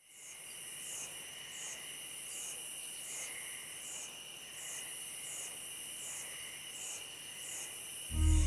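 Crickets and other insects trilling steadily, one high chirring pulsing about once every three-quarters of a second over a continuous whine. Just before the end, a deep low boom cuts in.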